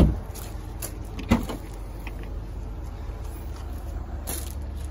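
A car door shut with a thud just over a second in, after a sharp knock at the start, over a steady low rumble.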